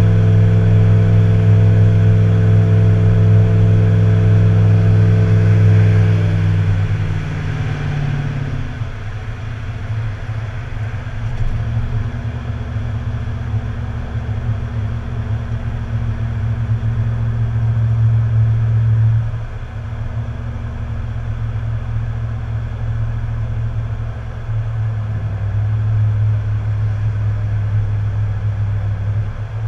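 Tow vehicle's engine running while driving with a boat in tow, a steady low drone. About seven seconds in its pitch falls and it gets quieter as the engine eases off, then it runs on steadily at the lower pitch.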